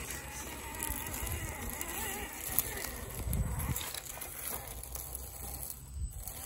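Small electric motor and gears of a scale RC crawler truck whining as it drives, the pitch wavering with the throttle, over a low rumble of wind on the microphone.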